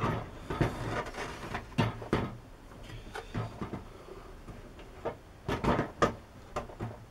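Irregular knocks and clicks with some scraping as a workpiece is turned round and pushed into place in a recess for a test fit.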